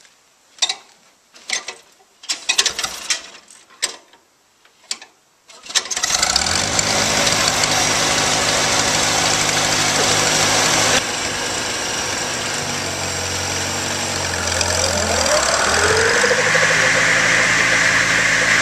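Farmall Cub tractor's four-cylinder engine being hand-cranked, with a few scattered clanks, then catching about six seconds in and running steadily. It eases back slightly around the middle. Near the end a higher whine rises in over the engine as the buzz saw, driven off the power take-off, spins up.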